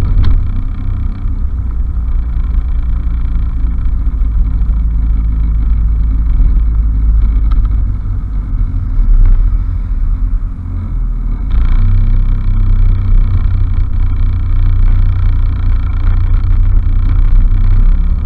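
Honda Fusion scooter's single-cylinder engine running steadily while ridden, with a heavy low rumble underneath. About eleven seconds in, the sound dips briefly, then grows louder and brighter.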